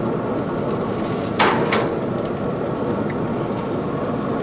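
Lamb and vegetable kebabs sizzling and crackling steadily on the hot grates of a pellet grill, with two sharp pops about a second and a half in.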